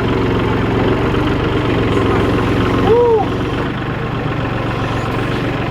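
Farm tractor engine idling steadily. About three seconds in comes a brief rising-and-falling call from one of the cattle.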